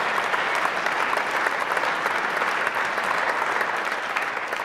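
A large audience applauding steadily, a dense wash of many hands clapping.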